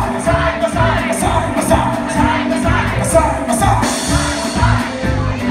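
Live band of electric guitar, bass guitar and drum kit playing at a steady beat, with singing over it.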